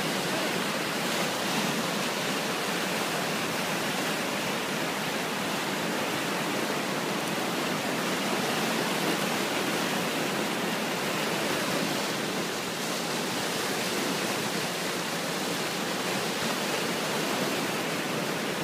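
Muddy floodwater of a flash flood rushing and churning in whitewater past an undercut road edge: a steady, unbroken rush of water.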